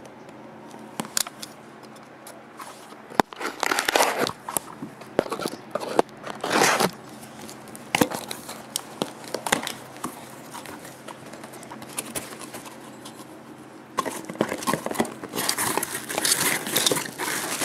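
A cardboard shipping box and its packaging being opened by hand: crinkling, tearing and scraping in irregular bursts with sharp clicks, busiest near the end.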